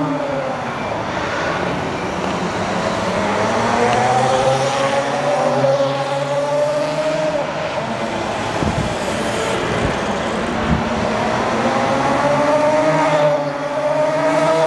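The electric drive motors of CFMOTO's youth electric dirt bike and EV110 electric ATV whine as they ride around, the pitch rising and falling as they speed up and slow down. There is a rougher, noisier stretch around the middle.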